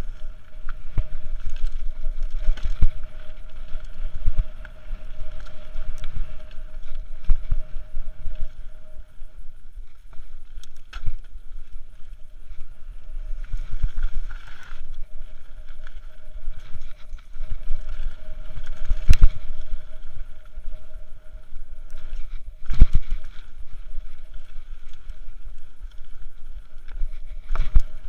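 Mountain bike descending a dirt forest trail, heard from a body-mounted action camera: tyres rumbling and the bike rattling over the rough ground, with sharp knocks from bumps, the loudest about two-thirds of the way through. Wind rushes over the microphone, and a faint steady hum runs underneath.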